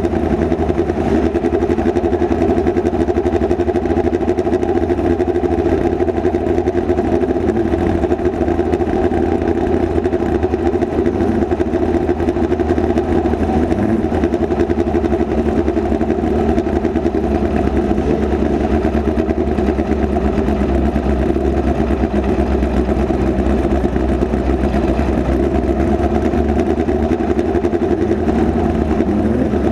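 Midget race car's engine running loud and fairly steady, heard from inside the open cockpit during a dirt-track race.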